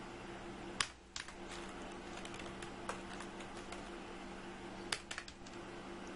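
Computer keyboard keystrokes: a dozen or so irregular clicks, louder ones about a second in and near five seconds, over a steady low hum.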